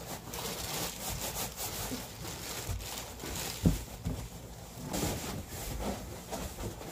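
Cardboard flaps of a large shipping box scraping and rubbing as the box is handled and tipped, with one dull thump a little past halfway.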